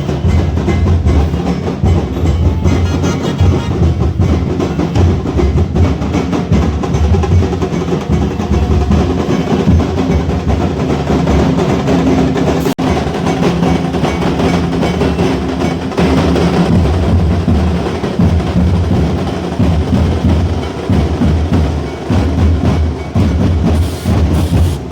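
Procession drumming played loudly and without a break: heavy low drum beats with rolls.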